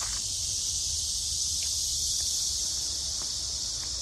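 Steady, high-pitched buzzing chorus of cicadas, with a low rumble underneath.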